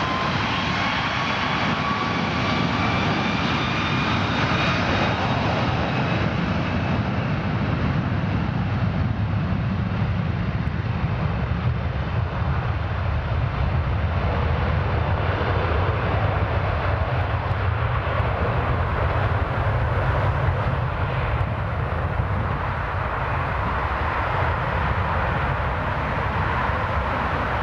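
Airbus A330-300's Rolls-Royce Trent 700 turbofans at takeoff thrust on the takeoff roll. A whine rises over the first few seconds as the engines spool up, then a steady deep rumble grows duller as the jet moves away down the runway.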